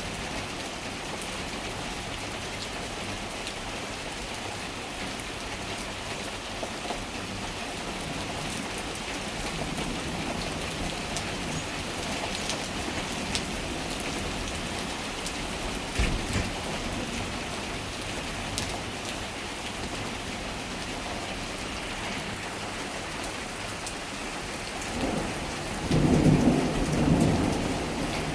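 Steady rain falling, with a sharp crack about halfway through and a loud, low rumble of thunder near the end.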